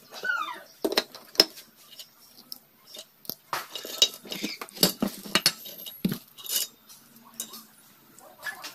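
Metal parts of a 150cc engine clinking and clanking as they are handled: the timing chain, cam sprocket and crankshaft being lifted out of the open crankcase. Many separate sharp knocks, several ringing briefly, busiest in the middle.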